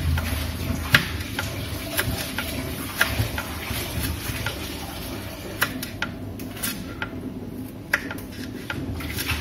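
Kitchen knife slicing a green tomato on a plastic cutting board: sharp taps of the blade hitting the board at irregular intervals, roughly one or two a second.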